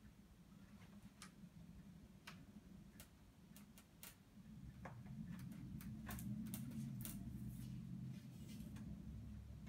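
Faint handling sounds of a glove puppet working a large egg in a wicker basket: scattered, irregular light clicks and creaks, with a low rustling rumble that grows from about halfway through.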